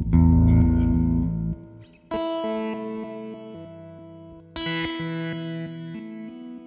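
Electric guitar played through an Old Blood Noise BL-44 reverse pedal, with reversed, pitch-shifted repeats. A low, pulsing sound cuts off about a second and a half in, then a chord is struck twice, about two and four and a half seconds in, each left to ring down.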